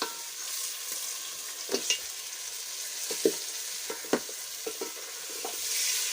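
Tomato paste with chicken sizzling in a pot over the fire, a steady hiss that swells near the end, while a wooden spoon stirs it and knocks against the pot now and then.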